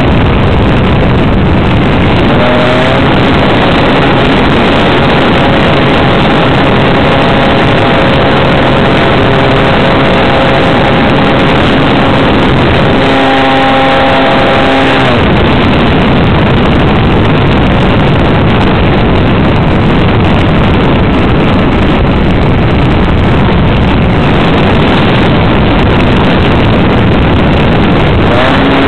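Model aircraft engine running in flight, heard from a camera mounted on the plane: a steady engine drone under heavy, loud wind rush. The engine's pitch comes through more clearly for a stretch from a few seconds in to about halfway.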